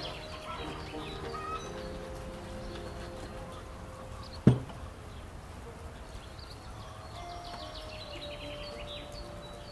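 Birds chirping in quick trills over soft background music with held notes, broken by one sharp knock about four and a half seconds in.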